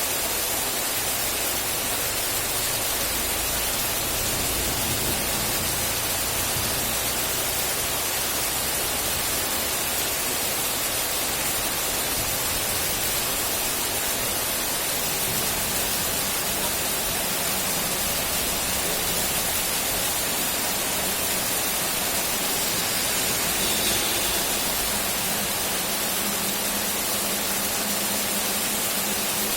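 Steady heavy rain: an even, continuous hiss with no separate drops standing out.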